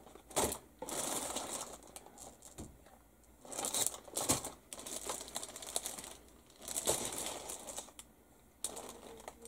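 Plastic model-kit sprues being handled and their plastic packaging crinkling. It comes in irregular bursts of rustling with light plastic clicks.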